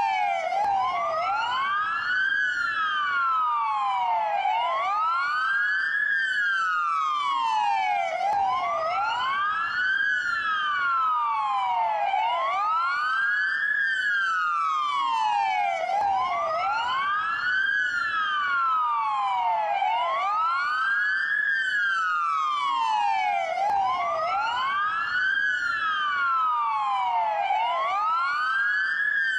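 Dual police siren on wail: two sirens slightly out of step, each rising and falling slowly about once every four seconds.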